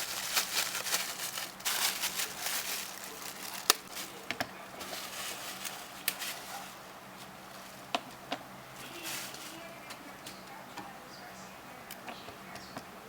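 Plastic packaging rustling and crinkling for the first couple of seconds. Then come scattered single clicks and taps of small objects being handled, over a faint steady hum.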